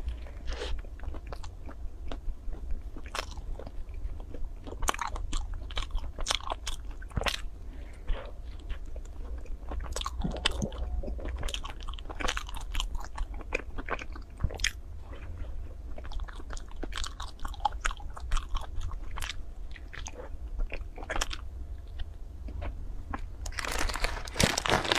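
Close-up biting and chewing of a chocolate-shelled ice cream bar, the hard chocolate coating cracking in many irregular crunches. A denser, louder burst of crackling comes about a second before the end.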